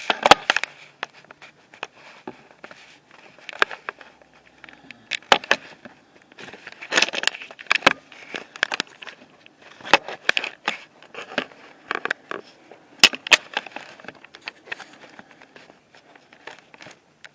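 Handling noise on the camera's microphone: irregular clicks, scrapes and rustles as the camera is gripped and moved about.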